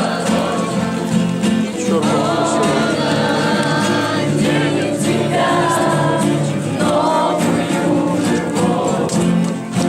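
A group of people singing a song together, with instrumental accompaniment.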